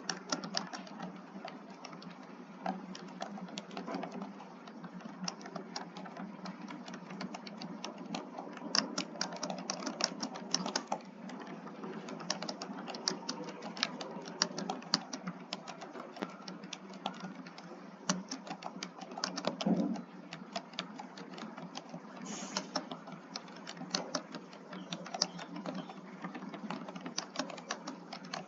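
Fast, continuous typing on a computer keyboard: a dense, irregular stream of keystroke clicks at about 51 words a minute.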